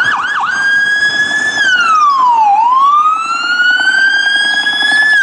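Police car siren: two quick yelps, then a slow wail that falls to a low pitch about halfway through and climbs back up, cutting off at the end.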